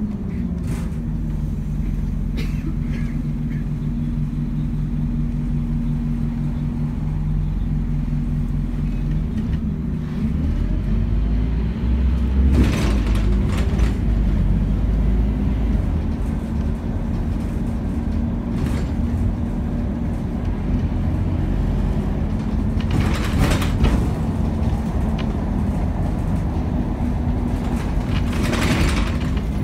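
Scania N270UD double-decker bus's five-cylinder diesel engine running under way, heard from inside the passenger saloon, its note changing about ten seconds in. A few brief bursts of noise cut in over the engine.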